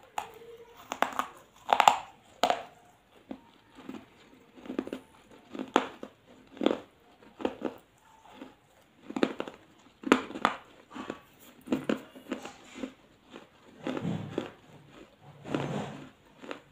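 Close-up crunching of a baked clay pot shard between the teeth: repeated sharp, gritty crunches about once a second, loudest in the first few seconds, with quieter chewing between them.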